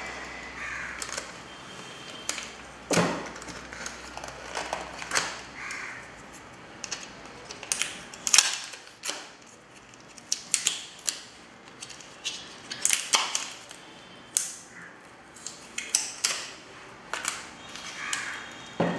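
Protective paper and blue adhesive tape being peeled and pulled off a copier's plastic imaging (drum) unit: irregular crackles, short tearing rasps and sharp clicks of the plastic housing being handled.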